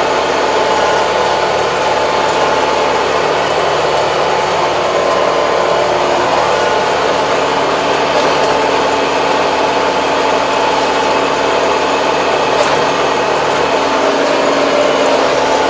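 Farm tractor engine running steadily, heard from inside the cab, a constant drone with a steady pitched hum.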